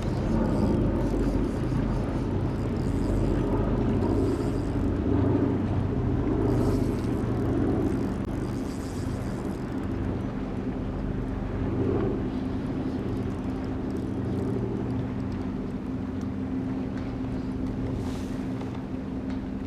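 Motorboat engine droning on the lake. The low rumble is heavier in the first half, then settles into a steady hum.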